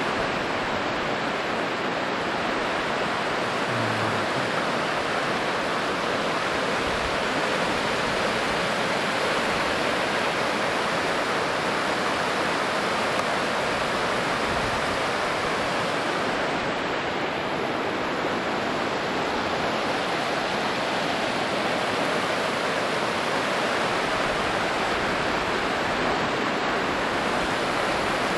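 Rushing water of a shallow, boulder-strewn mountain river running over rapids: a steady, even rush that holds at the same level throughout.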